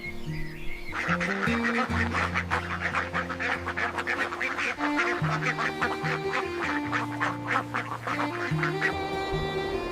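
Soft background music with steady held notes; from about a second in until near the end, a flock of farm poultry calls over it in quick, dense, overlapping calls.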